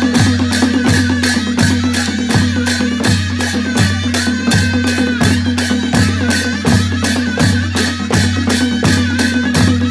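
Nepali panche baaja wedding band playing: cymbals clashing about three times a second over a steady low drum beat, with a high shehnai melody line above.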